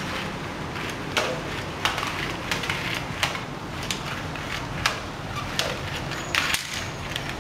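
Irregular sharp clicks and knocks, roughly two a second, over a steady low hum.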